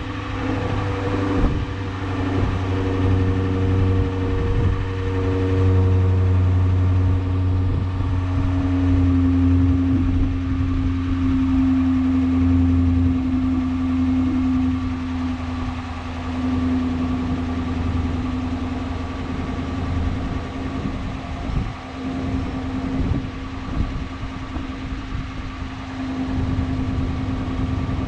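2013 Dodge Charger Pursuit running on its stock exhaust, factory mid mufflers still fitted, idling steadily just after start-up. The low exhaust note eases down about thirteen seconds in.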